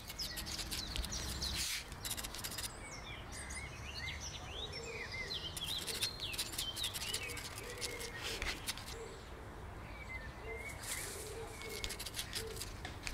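Outdoor ambience with small birds chirping: a run of quick rising and falling chirps in the middle, over a steady low rumble and scattered clicks.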